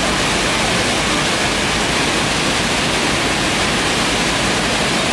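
Wide waterfall pouring over a dam spillway and crashing into the river just below: a loud, steady rush of falling water.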